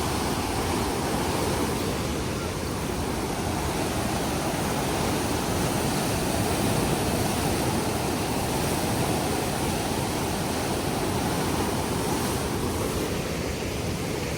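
Steady, unbroken roar of rushing water at Huka Falls, where the Waikato River pours with great force through a narrow gorge.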